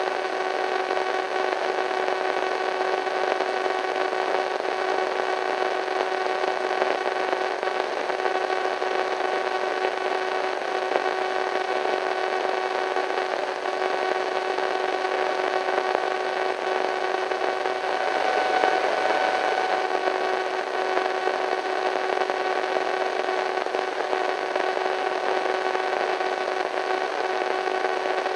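Radio static: a steady hiss with several faint constant tones humming through it, swelling slightly about two-thirds of the way through.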